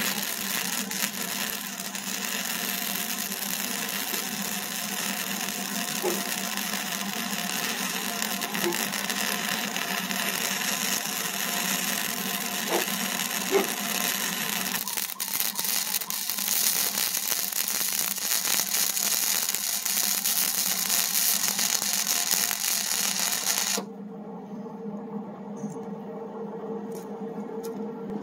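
Welding arc crackling continuously on the steel loader bucket for about 24 seconds, then cutting off suddenly. A quieter steady hum remains after.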